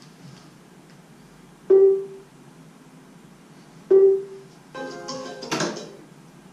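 Pepper humanoid robot playing electronic chime sounds: two single bell-like notes about two seconds apart, then a short jingle of several notes about five seconds in.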